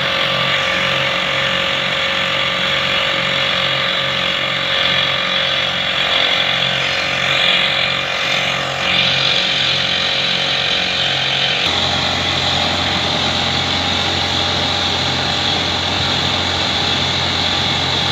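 Pneumatic rock drill running, a loud steady hiss of air and machine noise that changes abruptly about twelve seconds in to a lower, steadier hum.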